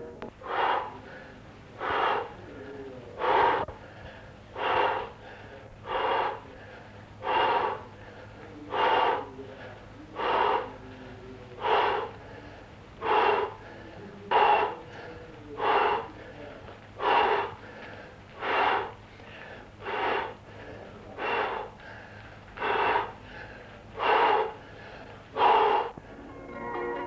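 A person breathing heavily in a steady rhythm, one loud breath about every second and a half.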